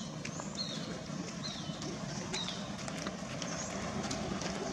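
Outdoor ambience: a steady low hum under a series of short, high, falling chirps that repeat every half second to a second, with a few faint clicks.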